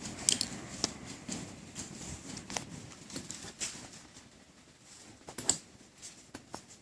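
Light clicks and rustling of a Strider SNG folding knife being handled, with scattered small ticks and one sharper click about five and a half seconds in.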